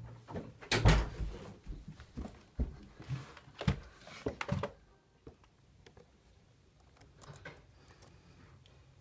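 Handling knocks and bumps as a laptop is picked up and its lid opened, the loudest a thump about a second in and several sharper knocks over the next few seconds. After about five seconds it goes quiet, with a few faint clicks.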